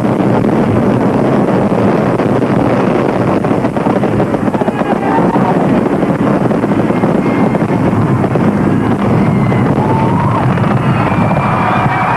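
Fireworks finale barrage: many display shells firing and bursting at once, making a continuous loud rumble and crackle. Whoops and whistles rise over it near the end.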